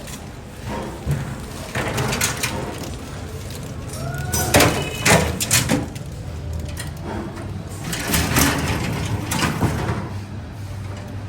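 Workshop metalworking noise: irregular clanks and scraping of metal parts over a steady low machine hum, with the densest clatter around the middle.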